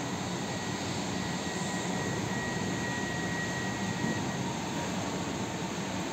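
Steady distant vehicle rumble, with a faint high whine for a few seconds in the middle.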